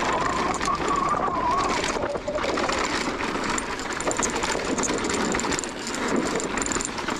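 Mountain bike rolling fast down a dirt singletrack: tyres running over loose dirt and stones, the chain and frame rattling over the bumps, and the rear freehub buzzing with rapid clicks while coasting.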